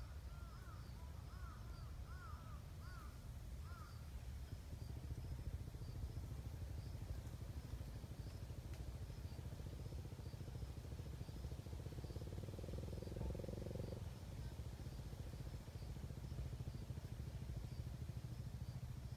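Faint outdoor ambience: a low steady rumble that grows a little after about four seconds, with a hum on top that stops abruptly about fourteen seconds in. A bird gives five quick arching chirps in the first four seconds, and faint high chirps repeat throughout.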